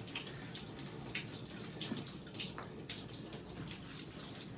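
Water running and splashing in a bathtub as a wet dog is washed, with irregular small splashes.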